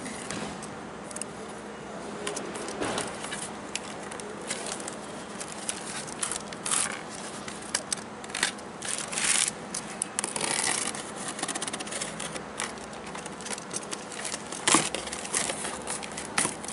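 Box cutter slitting the packing tape on a cardboard shipping box, in irregular scraping and tearing strokes, with the cardboard rustling and flaps being pulled. A sharp knock near the end.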